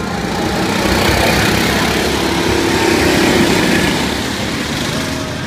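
Several go-kart engines running hard as the karts pass close by, the sound swelling to a peak about three seconds in and then fading.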